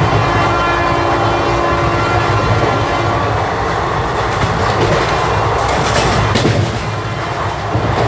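Horns of a WAP-4 electric locomotive sounding a chord of steady tones from the head of the train, fading out after about three seconds, over the steady rumble and clatter of the coach's wheels on the track.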